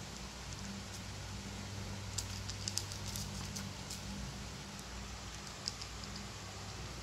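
Cats eating dry kibble, with scattered crunches and clicks that cluster a couple of seconds in, over a steady low hum.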